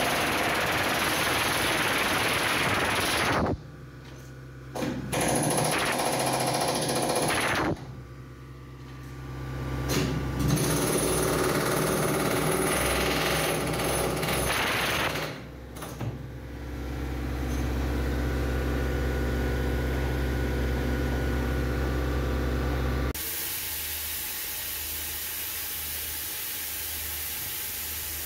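Chipping hammer breaking hardened concrete out of a steel transit mixer drum, in three long bursts with short pauses between. After the hammering, a steady low hum runs for several seconds, then gives way suddenly to a steady hiss.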